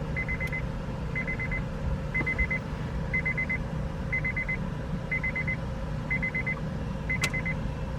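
Car's key-in-ignition warning chime: a short, rapid buzzing chime repeating about once a second, the reminder that the key is left in the ignition with the door open.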